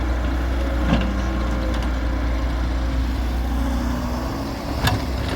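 Heavy diesel machinery engine running steadily, with a sharp knock about a second in and another near the end.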